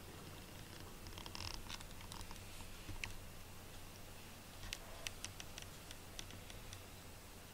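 A cat shifting its legs on carpet, heard as faint, scattered light clicks and rustles. There is a short cluster about a second and a half in and a run of them from about halfway.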